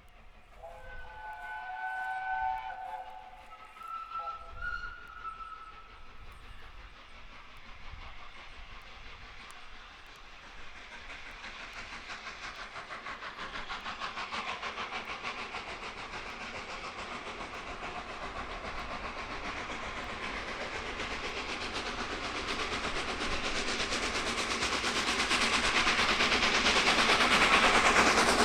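Peppercorn A1 Pacific steam locomotive 60163 Tornado sounding its whistle, a chord of several notes, followed by a second shorter blast. Then the locomotive and its train approach, their rumble and exhaust growing steadily louder.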